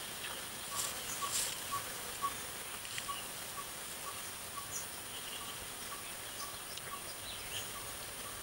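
Rural outdoor ambience: a steady high-pitched insect drone, with a faint regular peep about twice a second. A few brief soft rustles and clicks come in the first few seconds.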